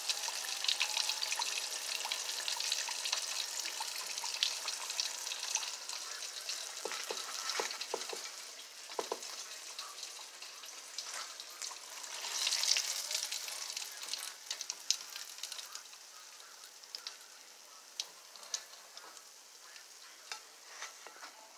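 Flour-coated tilapia fillets frying in hot oil: a dense sizzle with scattered sharp pops and clicks. It swells briefly about halfway through and then grows quieter toward the end.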